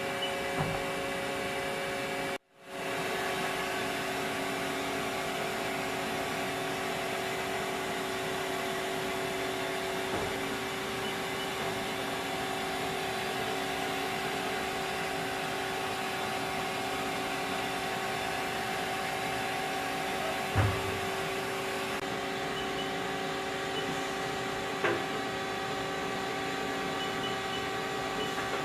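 Haas ST20 CNC lathe running steadily: a constant machine hum with several held tones over a hiss. It is broken by a sudden gap of silence about two and a half seconds in, and by a couple of faint knocks later on.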